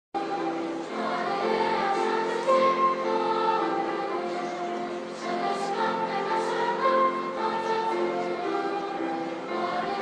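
Children's choir singing with piano and flute accompaniment.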